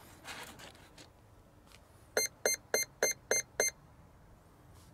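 Electronic speed controller of an electric ducted-fan model jet beeping through its motor after the flight battery is plugged in: six short beeps of the same pitch, about four a second, the controller's power-up signal.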